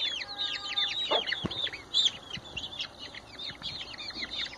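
A brood of chicks peeping nonstop, many short high chirps that each slide downward in pitch, with a hen giving a brief low cluck about a second in.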